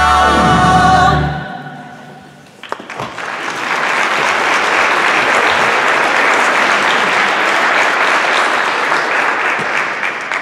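A show tune's last sung note, held with vibrato over its accompaniment, ends about a second in. About two and a half seconds in, an audience starts applauding and keeps clapping steadily.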